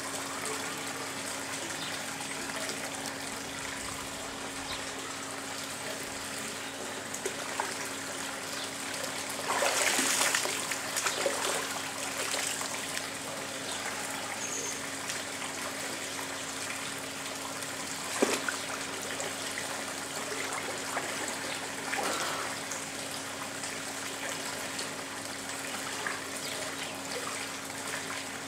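Swimming-pool water running and trickling steadily over a constant low hum, with a louder rush of water about ten seconds in and a few brief splashes and knocks as a man gets into the pool and swims.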